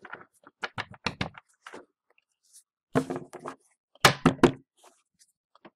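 Trading cards being handled and knocked against a wooden desk: a quick run of light knocks and clicks, then louder bumps about three and four seconds in.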